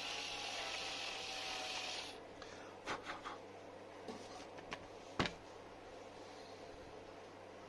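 A steady hiss lasting about two seconds, then a few light clicks and knocks from handling tools or parts.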